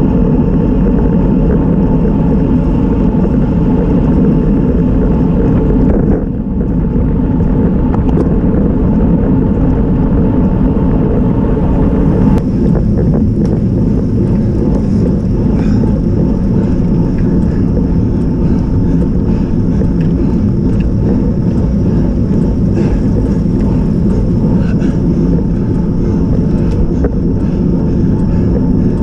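Steady wind buffeting and road rumble on the microphone of a bicycle-mounted camera as a road bike rides along. Scattered light clicks in the second half.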